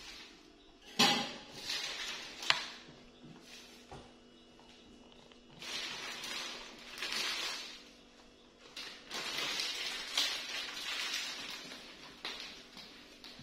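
Leafy greens rustling and crackling as they are handled, in several spells of a few seconds each, with a sharp knock about a second in and a click about two and a half seconds in.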